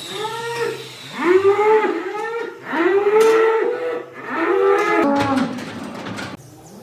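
Cattle mooing: a string of short, overlapping moos, each rising and then falling in pitch, that cuts off suddenly near the end.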